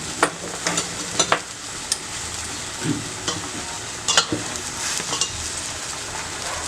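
Pigeon meat frying in hot oil, a steady sizzle with a few sharp scrapes and knocks of stirring in the pan.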